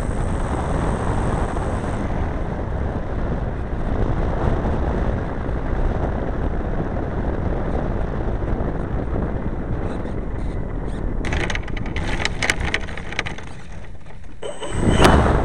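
Steady rushing rumble of engine and air noise picked up by a camera riding on a large RC model plane rolling on a dirt strip. A quick run of rattling knocks comes about eleven seconds in, then a loud sudden clunk near the end.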